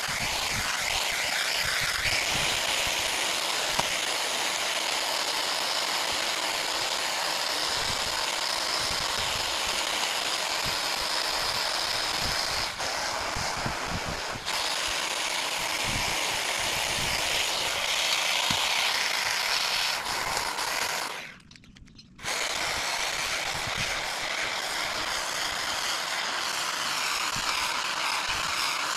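Cordless Husqvarna hedge trimmer running as it cuts through a hedge: a steady buzzing chatter of the blades. The sound cuts out for about a second roughly two-thirds of the way through, then comes straight back.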